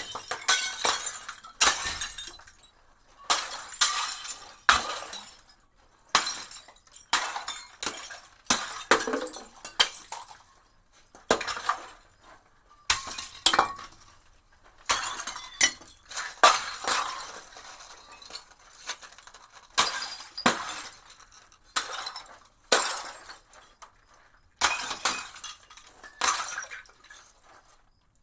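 Glass bottles smashing one after another, about two dozen times, each a sharp crash followed by a brief tinkle of falling shards.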